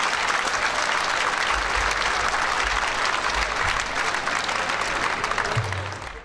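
Theatre audience applauding, many hands clapping together, fading out at the end.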